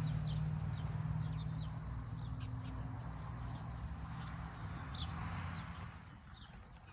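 A steady low hum that fades out near the end, with small birds chirping over it in short, quick high chirps.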